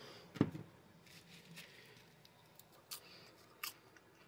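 A single sharp knock about half a second in, then quiet with a few faint clicks and light rustles: a plastic popcorn-seasoning shaker and paper plates of popcorn being handled on a table.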